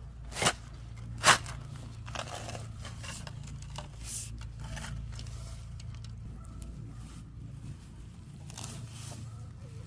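A weed being pulled up and handled for transplanting: two sharp tearing sounds about half a second and a second in, then scattered softer rustling and scraping.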